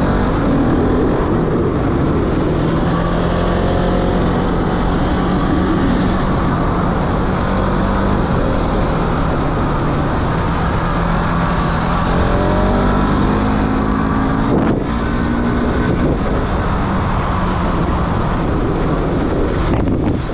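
Motorbike engine running while riding, its pitch rising and falling with the throttle, under heavy wind noise on the microphone.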